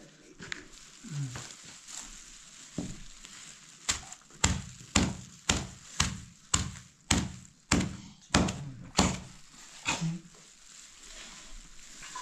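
Rhythmic knocking: about a dozen sharp blows, roughly two a second, starting about four seconds in and stopping around ten seconds in, with a few fainter knocks before them.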